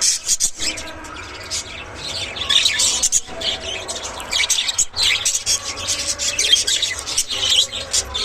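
Budgerigars chattering: a dense run of quick high chirps and warbles with a few brief pauses.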